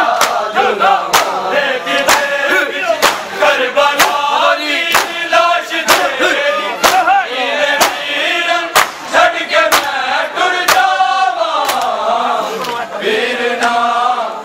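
A crowd of men chanting a noha in unison while beating their bare chests with their open hands (matam). The slaps land together about once a second, sharp against the singing.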